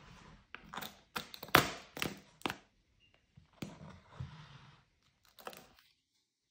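Pink plastic lid pressed onto a plastic food tub: a run of sharp plastic clicks and crackles, the loudest about a second and a half in. A few softer clicks and a rustle follow as the lid is handled again near the end.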